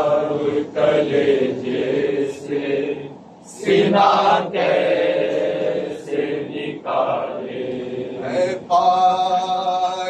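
Group of men chanting a noha, a Muharram lament, together in a steady sung recitation, with a short break about three seconds in.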